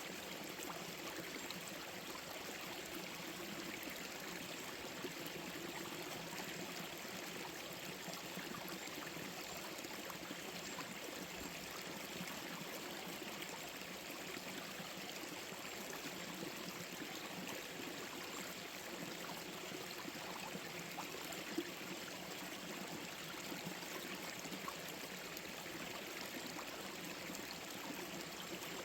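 Forest stream flowing over stones: a steady, even rush of water.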